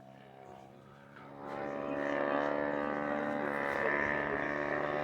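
Propeller airplane engine droning overhead, quiet at first and growing louder about a second and a half in, then holding steady as the plane comes closer.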